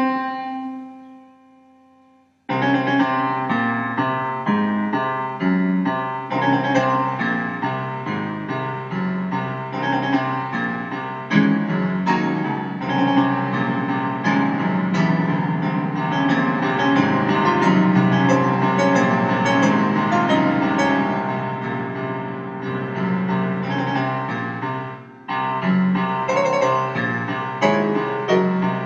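Contemporary classical keyboard music with piano-like struck notes. A held chord dies away at the start. After about two and a half seconds a dense, fast stream of notes and clustered chords begins, with a brief break near the end.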